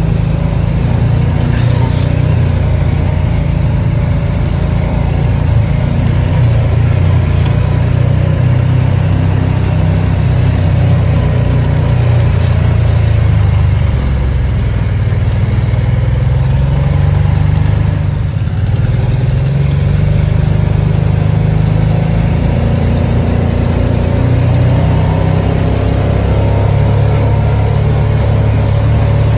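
Off-road vehicle engine running at trail-crawling speed, its low note rising and falling with the throttle, with a brief dip about two-thirds of the way through.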